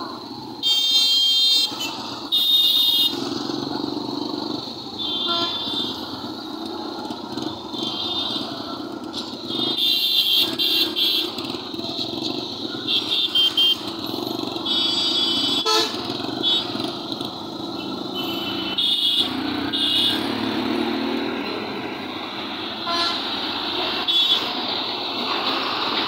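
Busy road traffic of motorcycles, auto-rickshaws and trucks running past, with vehicle horns honking again and again, a dozen or so short blasts, some about a second long.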